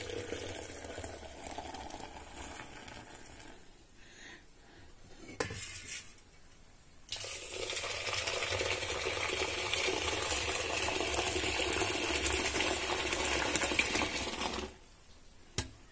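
Boiled milk poured in a thin stream from a height into a steel pot, splashing and frothing up, as is done to foam and cool it before setting curd. A first pour tails off in the first few seconds, a light knock follows, then a second, steady pour runs for about seven seconds and stops suddenly near the end.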